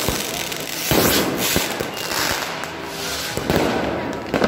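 Fireworks going off: irregular sharp bangs from aerial shells over continuous crackling and hissing.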